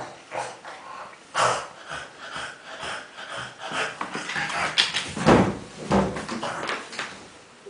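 French bulldog making pig-like noises: a run of short, irregular noisy bursts, loudest a little past the middle.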